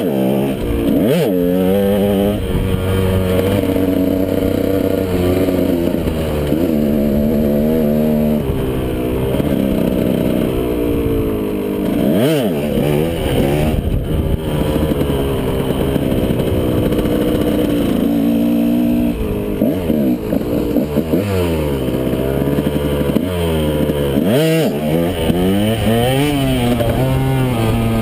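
KTM 125 SX two-stroke single-cylinder dirt bike engine being ridden hard, its pitch repeatedly climbing and falling with throttle and gear changes. Four times the revs drop sharply and snap back up as the throttle is chopped and reopened.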